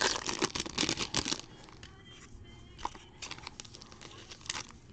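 Packaging being torn open and crinkled on a box of trading cards, in a dense burst for about the first second and a half, then light scattered rustles and clicks as the contents are handled.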